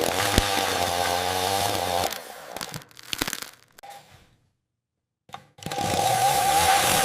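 AI-generated chainsaw sound running steadily, then breaking off about two seconds in into a few crackles and knocks. After a moment of complete silence and one click, the chainsaw runs again near the end.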